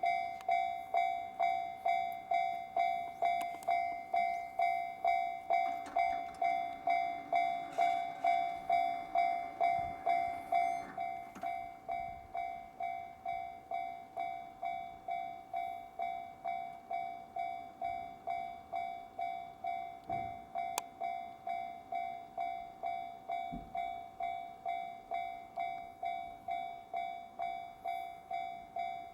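Japanese level-crossing warning bell ringing: an electronic ding repeating steadily at about one and a half strikes a second, the sign that a train is approaching or passing. A faint rushing noise sits beneath it for a few seconds around the middle.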